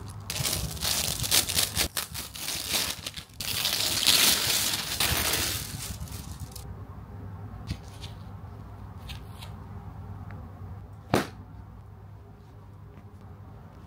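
Plastic wrapping crinkling and tearing as it is pulled off a padded laptop sleeve, loud for the first five or six seconds, then quiet handling with one sharp tap about eleven seconds in.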